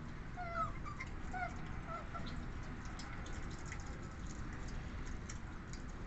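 Asian small-clawed otters giving short, high, squeaky chirps that fall in pitch, several in the first two seconds, then faint clicks and taps.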